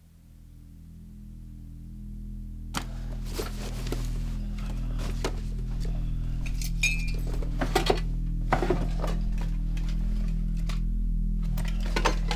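Background music with low sustained notes fading in, under repeated clinking and clattering of dishes and cutlery that starts about three seconds in.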